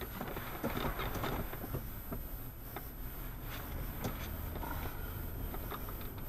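Vehicle driving at moderate speed, heard from inside: a steady low engine and road rumble, with scattered light clicks and rattles.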